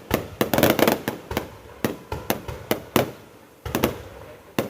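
Fireworks going off in a rapid, irregular series of sharp bangs and pops, thinning to a brief lull just past the middle before more bangs resume.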